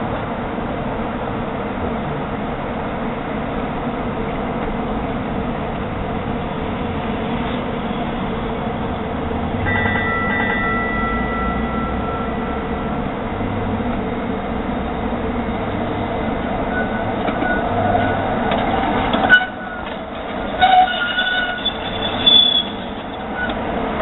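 Portland MAX light rail train rolling slowly through the yard over curved track with a steady rumble. High-pitched squeals come about ten seconds in and again in the last few seconds, along with a few sharper louder moments.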